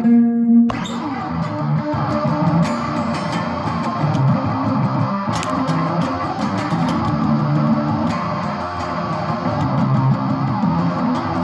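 Instrumental guitar music with bass and no singing. A few held notes give way, less than a second in, to a fuller, busier guitar part that carries on steadily.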